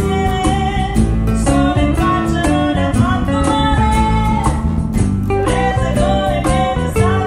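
Acoustic blues-rock band playing: a woman sings a melody over strummed acoustic guitars, with a steady percussion beat.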